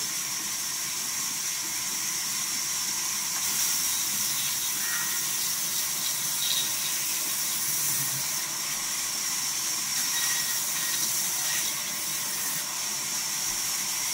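Vertical band saw mill ripping a log lengthwise as the log is pushed through the blade: a steady, high hiss of the saw cutting the wood.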